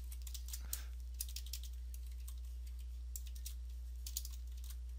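Computer keyboard typing: scattered key clicks in small clusters, over a steady low hum.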